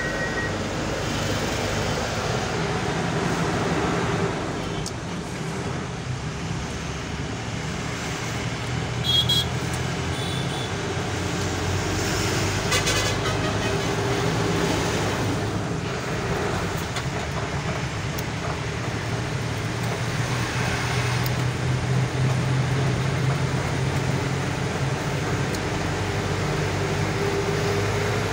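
Truck's diesel engine running steadily with road and wind noise inside the cab while driving on the highway, with a short high beep about nine seconds in.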